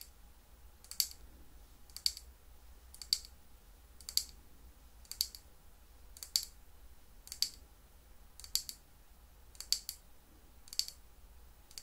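Close-miked chewing of sweets, a crisp click about once a second in a steady rhythm with each bite.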